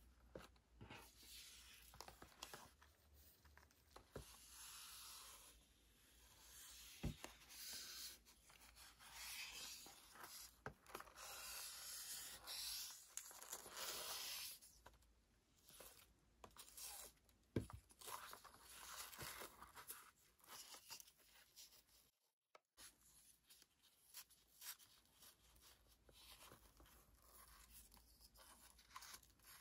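Quiet, on-and-off rubbing and swishing of a ribbon drawn around and tied onto a cardboard snack box, with the box handled and a few light taps.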